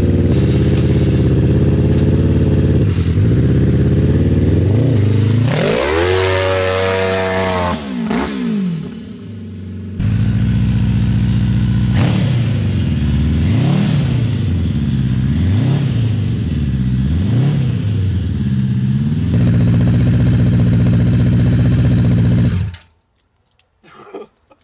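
Honda CBR1000RR inline-four motorcycle engine powering an off-road buggy, running and revving as it drives: the pitch sweeps up and back down, then rises and falls about five times in quick succession. The engine sound cuts off suddenly a couple of seconds before the end.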